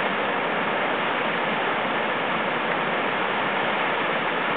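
Tahquamenon Upper Falls, a large river waterfall, rushing steadily.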